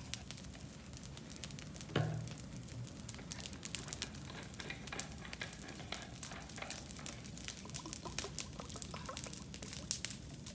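Wood fire crackling with scattered sharp pops, and a single dull thump about two seconds in.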